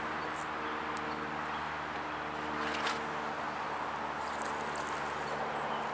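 Cordless Bubba Blade electric fillet knife running steadily as it fillets a fish.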